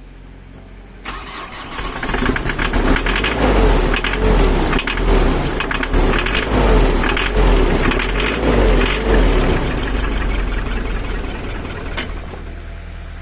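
The Chevrolet Colorado's 2.8 turbo-diesel is cranked by its starter for about eight seconds, the sound rising and falling evenly with each compression stroke. It then eases off and settles into a steady run near the end, a start that is soon in doubt of stalling.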